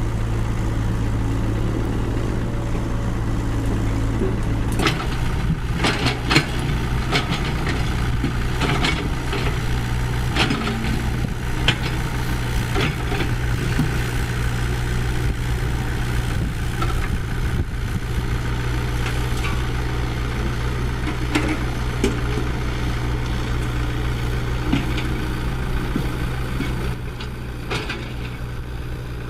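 Diesel engine of heavy construction machinery running steadily, with scattered sharp knocks from about five seconds in.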